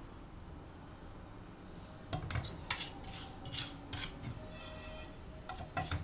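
Wooden spatula stirring and scraping cumin seeds across a dry non-stick frying pan, a quick run of scraping strokes starting about two seconds in. The seeds are being dry-roasted to drive off their dampness.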